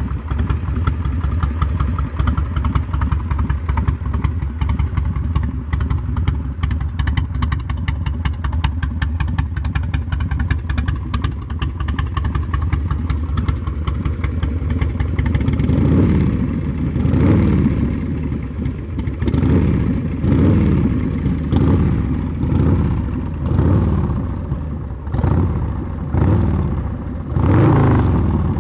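2003 American Ironhorse Slammer SZ's 107-cubic-inch S&S V-twin engine running through its stock exhaust. It idles steadily for about fifteen seconds, then is revved in a string of short throttle blips about a second apart.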